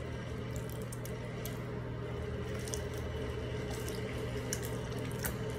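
Hands squishing and handling wet Orbeez water beads in a bowl: soft, scattered wet squelches and little clicks over a steady low hum.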